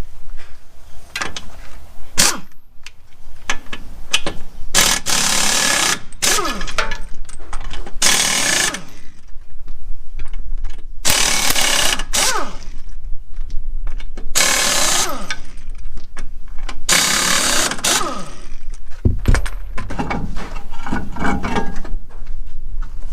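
Impact wrench on a truck wheel's lug nuts, running in five short bursts of about a second each, its pitch falling within each burst, with clanks and handling noise between.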